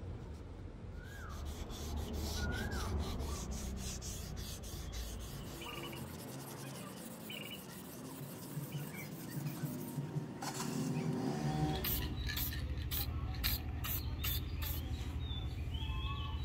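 Abrasive paper rubbed back and forth in quick repeated strokes along the steel edge of a double-bit axe head, sharpening and smoothing it.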